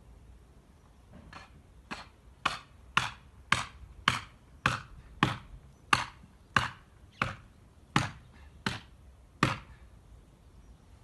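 Felling wedges being hammered into the cut of a tree trunk: about fourteen sharp strikes, roughly two a second, starting faint and stopping abruptly.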